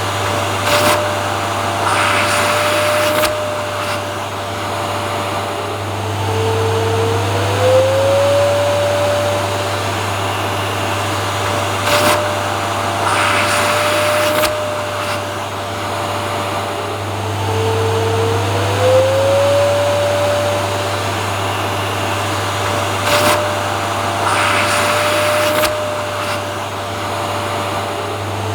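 Vacuum cleaner running continuously: a steady motor whine over a low hum. About every eleven seconds the same cycle repeats, a rush of hissing air followed by the whine dropping lower and gliding back up.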